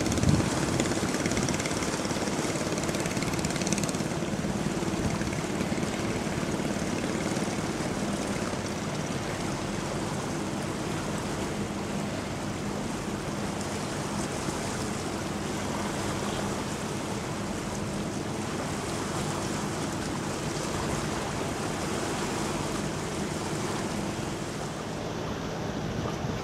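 Steady low hum of a ship's engine passing on the river, over an even rush of water.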